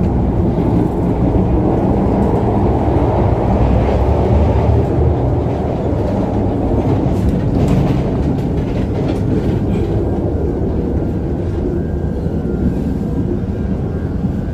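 KTM ETS electric train running on the rails, heard from inside a carriage: a steady, loud rumble with a few faint clicks about halfway through.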